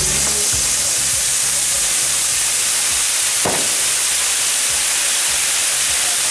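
Spark fountains of a Maltese mechanical ground firework burning with a steady, loud, hissing rush as the fireworks wheel turns.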